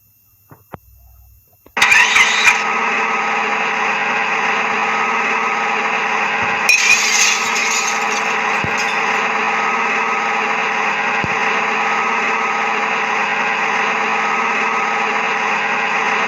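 A few faint clicks, then a loud, steady engine-like drone starts abruptly about two seconds in and runs on evenly, with a brief louder burst around seven seconds in.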